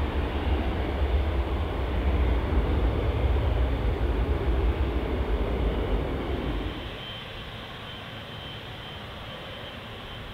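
Twin-engine airliner's jet engines at takeoff thrust: a loud, deep, steady roar as it climbs away. About seven seconds in, it cuts to the quieter steady hiss of a Boeing 777's GE90 engines at low power as the jet rolls slowly, with a faint high whine.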